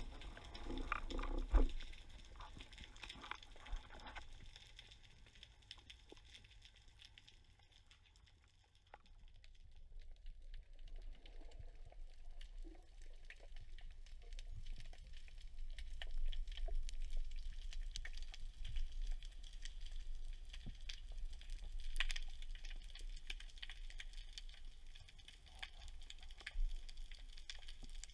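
Underwater sound picked up by a camera on a speargun: a steady wash of water noise with a dense crackle of small clicks, like frying. Low pulsing sounds are heard in the first few seconds; around a third of the way in it goes quieter, then the crackle returns louder.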